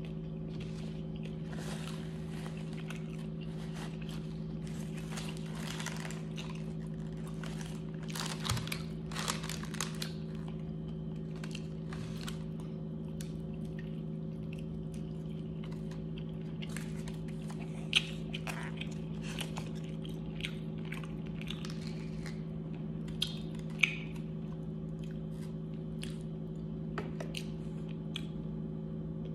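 A person eating fried chicken wings close to the microphone: bites, crunches and chewing, busiest in the first ten seconds, with two sharp clicks later on. A steady low hum runs underneath.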